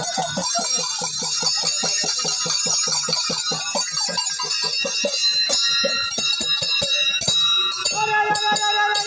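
Live folk dance music: a two-headed hand drum beaten in a fast, even rhythm of about five strokes a second, with bright jingling bells over it. About eight seconds in, a held pitched note comes in over the drumming.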